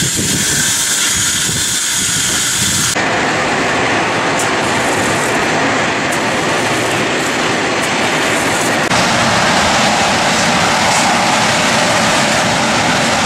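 Steam escaping from the steam locomotive Flagg Coal Co. No. 75, a loud steady hiss. Its tone changes abruptly twice, about three and nine seconds in.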